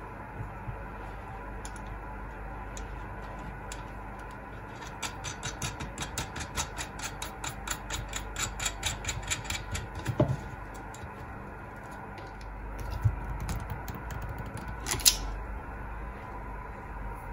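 Hand work on a nut and bolt through a plastic-pipe coil former: a fast run of small metallic clicks, about five a second for some five seconds, then a few single knocks and a sharp click.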